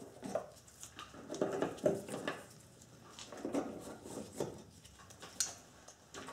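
Hand ratchet and socket turning bolts in the middle of a car's front bumper, heard as several short bursts of clicking and knocking.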